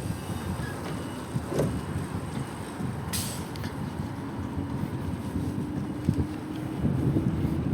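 Road traffic going by with wind rumbling on the microphone of a moving bicycle. A short high hiss comes about three seconds in, and a faint engine hum joins in the second half.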